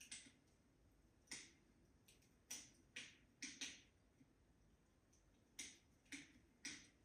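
Wood fire crackling in a fireplace: faint, irregular sharp pops, about nine in seven seconds, some coming in quick pairs, over a low hush.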